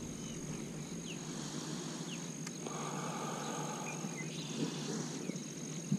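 Outdoor pond-side summer ambience: a steady high-pitched insect drone, with a few short bird chirps and a low rumbling noise underneath.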